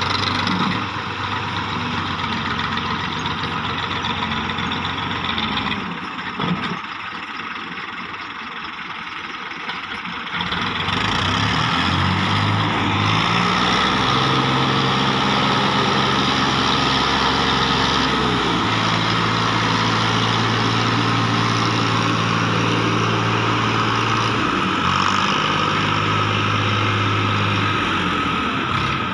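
Massey Ferguson 240 tractor's diesel engine working as it tows a trolley fully loaded with soil. The engine gets louder about eleven seconds in, and its pitch steps up and down several times.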